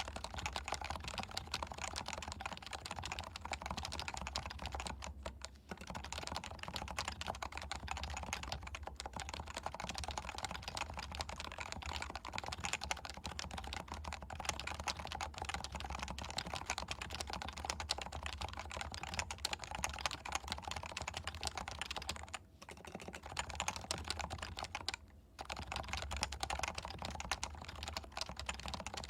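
Continuous typing on a Leopold FC660C keyboard with stock, non-silenced 45 g Topre electrostatic capacitive switches: a dense, rapid run of keystrokes. It breaks off briefly about five seconds in and twice more in the last third.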